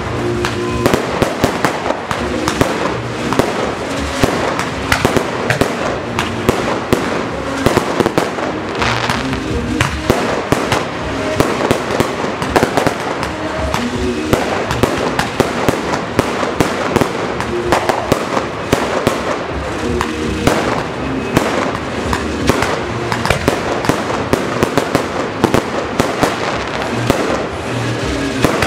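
Fireworks display: a continuous barrage of aerial shells bursting, several bangs a second, with music playing underneath.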